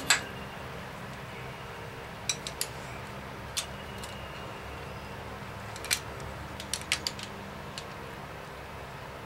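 Sharp metal clinks and taps of a socket wrench and sockets on the bolts of a small-block Chevy's main bearing caps, scattered in small clusters, over a steady low hum.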